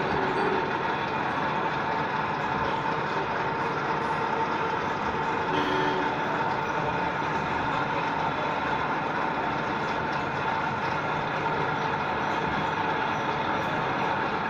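Nut-and-screw plano milling machine running, its electric motor, V-belt drive and gearbox turning the lead screw to traverse the table: a steady mechanical whir with a continuous whine.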